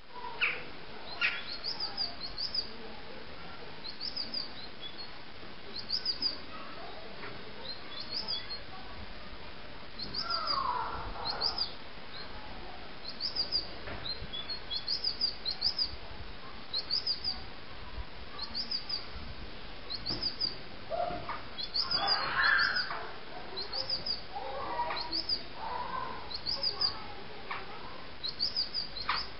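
Birds chirping: short, high chirps repeated about once a second, often in quick pairs, with a few lower, longer calls now and then.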